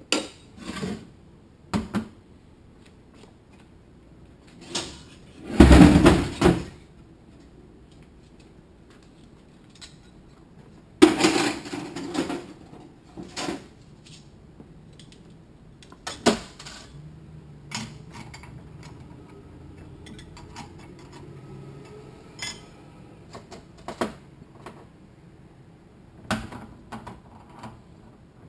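Intermittent metallic clanks and clatter of transmission parts and hand tools being handled, with two longer bursts of clattering about six seconds and eleven seconds in, and single knocks scattered between.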